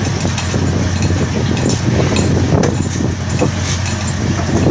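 Automatic squid-jigging machines and the ship's machinery running on a squid fishing vessel's deck: a steady low hum with scattered clicks and clinks throughout.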